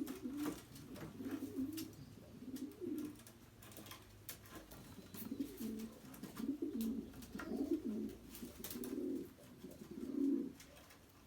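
Pigeons cooing in repeated low phrases of about half a second to a second each, with faint light clicks in between.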